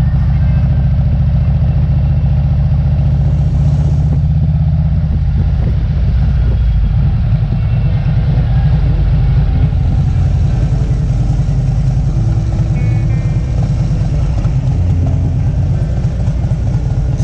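Harley-Davidson touring motorcycle's V-twin engine running steadily under way, heard close from the rider's seat, with a fast, even low throb.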